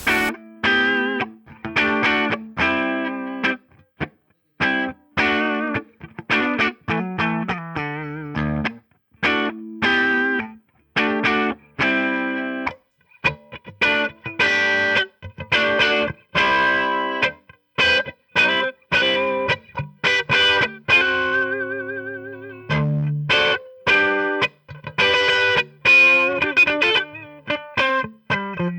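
Electric guitar played through a PRS Wind Through the Trees dual analog flanger pedal into a PRS Archon 25 amp: short chords and phrases with brief pauses between them, coloured by the flanger's sweeping, whooshing comb effect. About two thirds of the way through, a held note wavers audibly as the flanger sweeps.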